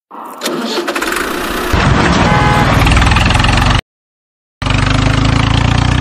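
A tractor engine starting and picking up into a steady low chugging run. The sound cuts out completely for under a second just past halfway, then comes back running steadily.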